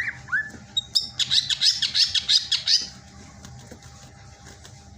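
Green leafbird (cucak ijo) singing: two quick rising whistled notes, then a fast, dense run of chattering notes for about two seconds that stops about three seconds in.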